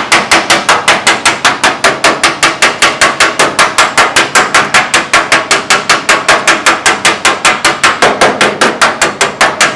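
Steel body hammer striking the sheet-steel cowl panel of a 1932 Ford in a fast, steady run of sharp metallic blows, about six a second, stopping at the end. The metal is being hammered to raise a dipped spot next to the cowl vent patch before it is welded.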